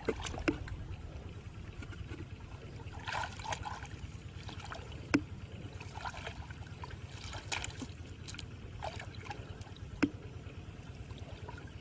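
Shallow water sloshing and trickling, with splashy bursts about three seconds in and again near eight seconds. Two sharp clicks come about five and ten seconds in, over a steady low rumble.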